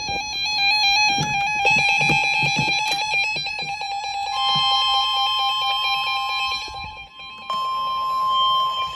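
Emergency Alert System alarm: a harsh, steady alarm tone with several tones sounding together. In the first four seconds it stutters with irregular low pulses, and it dips briefly about seven seconds in.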